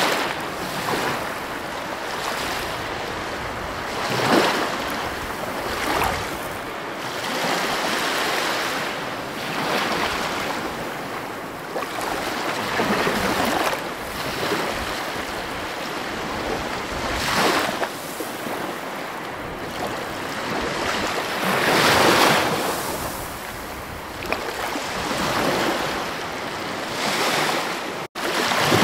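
Ocean surf: waves breaking and washing in, each swelling to a louder rush about every four to five seconds. The sound cuts out for a split second near the end.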